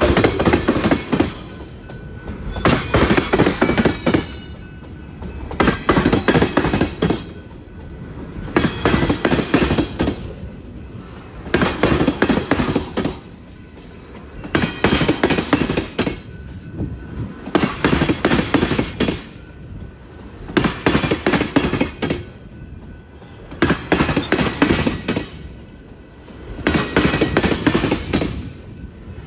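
Tank cars of a freight unit train rolling over rail joints: a burst of clattering wheel impacts about every three seconds as each car's wheel sets cross, with steady rolling noise between. The wheels are hitting the joints hard.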